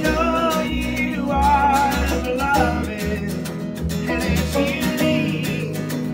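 Live acoustic folk-rock: an acoustic guitar strummed in a steady rhythm, with a man singing a wavering melody over it.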